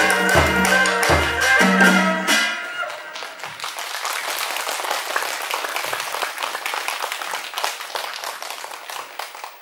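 Traditional hát bội (tuồng) ensemble music with a steady drum beat ends about two seconds in, followed by audience applause that gradually fades out.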